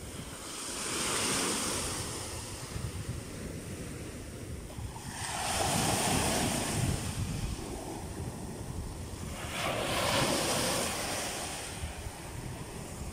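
Small Black Sea waves breaking and washing up a sandy beach close by: three surges of surf, about four seconds apart, each swelling and draining away.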